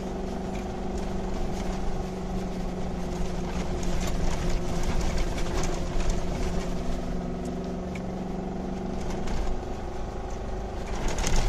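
Land Rover 4x4 driving over soft sand dunes, heard from inside the cabin: a steady engine note under load with road and tyre noise. It works harder a few seconds in and again near the end.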